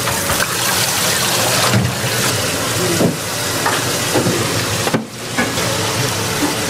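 Water running from a kitchen tap in a steady rush, with a few light knocks and a brief break about five seconds in.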